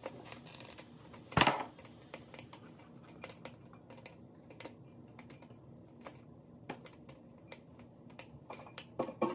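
A single thump about a second and a half in, then a run of light clicks and taps of a spatula scraping against a small stainless steel pot as cooked grated squash is scraped out, with a few louder knocks near the end as the pot is handled and set down.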